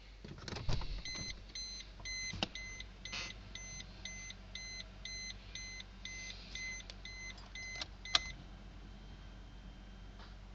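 Car warning chime beeping about twice a second for roughly seven seconds, among a few sharp clicks and knocks. The beeping stops just after the loudest click, about eight seconds in.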